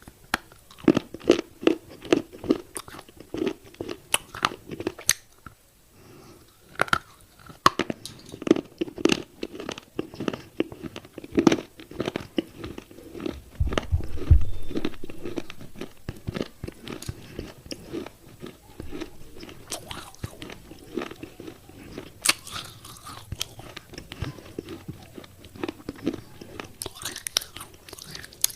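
A person biting and chewing pieces of wet baked clay pot, with repeated sharp crunches and gritty chewing. There is a louder low thump about halfway through.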